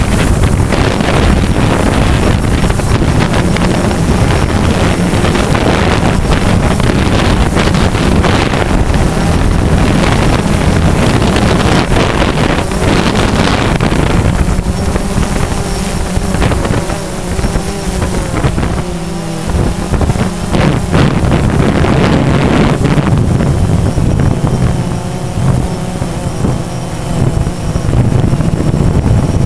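DJI Phantom quadcopter's motors and propellers buzzing in flight, heard from on board, with heavy wind buffeting on the microphone. The motor pitch shifts as the drone manoeuvres, most noticeably in the second half.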